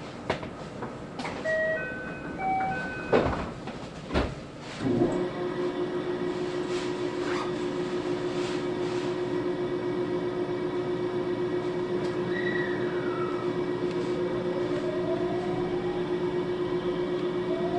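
Inside a 521-series electric train: a short electronic chime of a few notes, doors knocking shut, then the train pulling away with a steady electric hum and a rising whine from its traction motors as it gathers speed.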